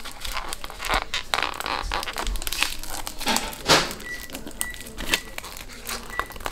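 Foil balloon and gift-bag tissue paper crinkling in irregular rustles as hands handle them and push a balloon stick into the bag.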